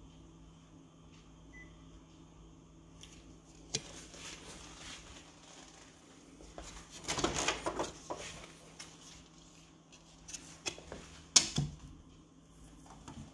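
Photocopier humming steadily while it is operated: a faint touch-panel beep about one and a half seconds in, then handling noise and clatter as an ID card is laid on the platen glass with the lid raised, with a sharp knock of plastic on plastic near the end.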